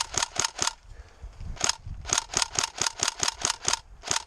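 Airsoft rifle firing quick strings of single shots, about four or five a second, each a sharp snap. There is a short burst at the start, a lone shot about a second and a half in, a longer string of about eight shots, and another string starting near the end.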